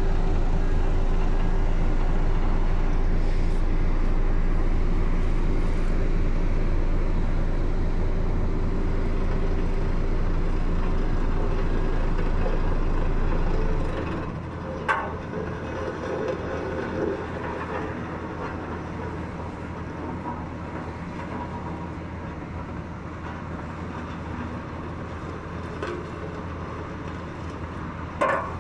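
Ammann single-drum vibratory roller running with its drum vibrating, a steady deep hum. About halfway through the deepest part of the hum cuts out and the level drops, leaving the diesel engine running on its own, as when the drum vibration is switched off. Two short knocks come later, one soon after the change and one near the end.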